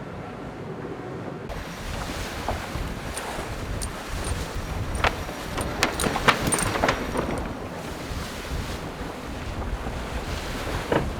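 Wind and rushing sea water on the deck of an IMOCA racing yacht under sail, with wind buffeting the microphone. About a second and a half in, it jumps to a louder rush, and a cluster of sharp knocks and splashes comes through the middle.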